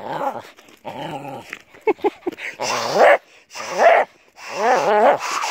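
Volpino–Chow Chow cross dog vocalizing in a series of about six short, wavering cries, each under a second, the last one the longest.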